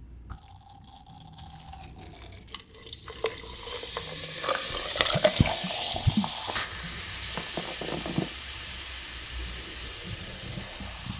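Beef intestines sizzling on a hot pan: a hiss starts about three seconds in, with sharp pops and clacks for a few seconds as pieces go on, then settles into a steady sizzle.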